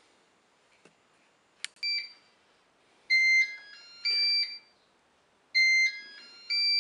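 Moulinex Cookeo multicooker's electronic beeps: a click and a short beep, then a short tune of stepped beeps played twice. It is the signal that the pot has reached browning temperature and the oil is hot.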